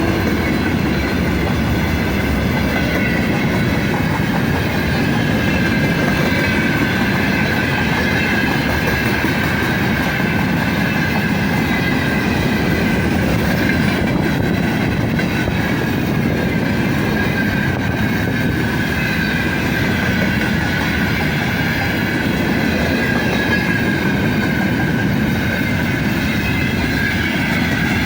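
A loaded freight train's wagons rolling past on steel rails: a steady, loud rumble and clatter of wheels on the track, with a faint high wheel squeal held throughout.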